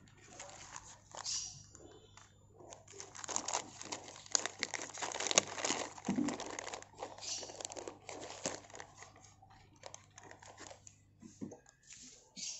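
Clear plastic bag crinkling and crackling as it is handled, busiest in the middle, then thinning out.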